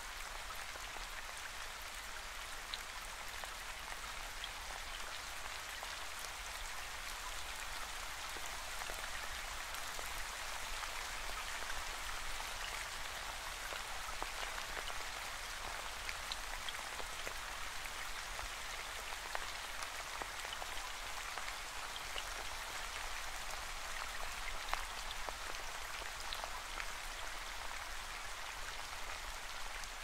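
Steady rain falling, with scattered individual drops ticking distinctly on top of the even hiss.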